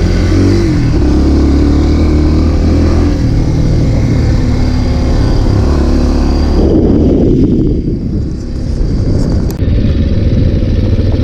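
Small trail motorcycle engine running under way with a steady, loud note. About two-thirds through, the engine eases off briefly, then picks back up near the end.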